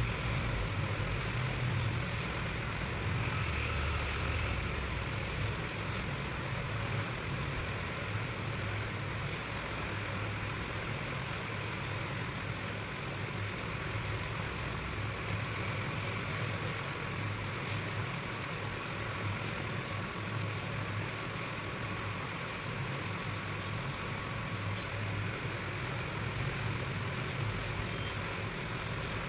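Steady low background rumble, like road traffic.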